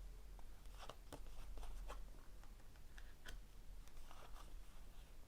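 Tarot cards being shuffled and laid out by hand: faint, irregular soft clicks and rustles of card stock.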